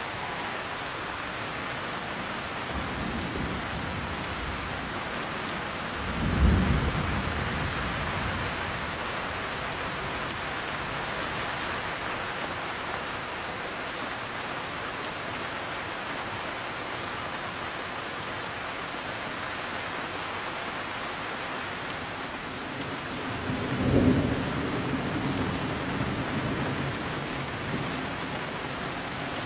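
Heavy, steady rain with thunder: low rumbles about six seconds in and again about 24 seconds in, each fading slowly.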